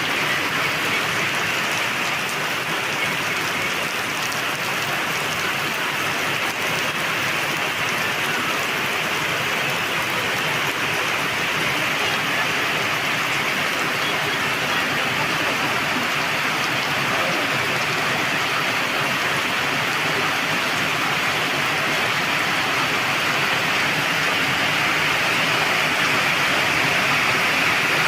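Rain falling steadily, a dense even hiss that grows slightly louder toward the end.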